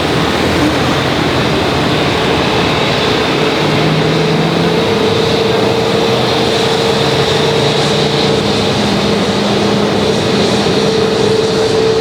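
Steady jet engine noise of an Airbus A330-300 airliner, a constant rush with faint steady humming tones running through it.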